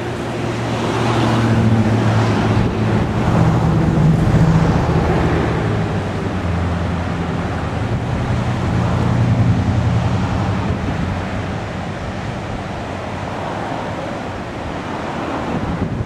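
Wind buffeting the camcorder's microphone in a steady rush, with a vehicle engine humming underneath that swells in the first few seconds and again about ten seconds in.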